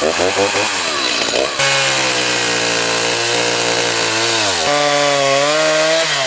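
Chainsaw revving, then running steadily under load as it cuts the felling notch into a cedar trunk; the engine pitch dips and shifts about three-quarters of the way through.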